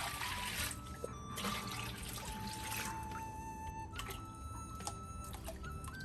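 Water poured from a plastic scoop into a wok, in two pours within the first three seconds. Faint background music carries on throughout.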